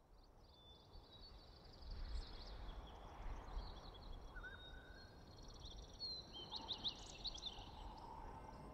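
Faint outdoor ambience fading in: small birds chirping over a steady low rumble, with a quick run of high chirps near the end.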